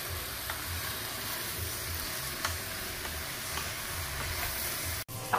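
Pot of pumpkin, onion, pimento and garlic sizzling in oil: a steady hiss with a few faint pops, cut off suddenly near the end.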